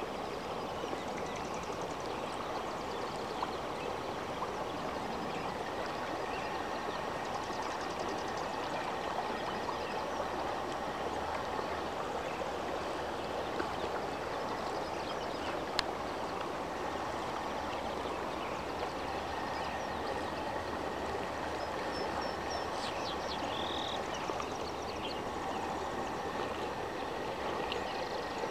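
Small mountain stream running steadily, with a few short high chirps partway through.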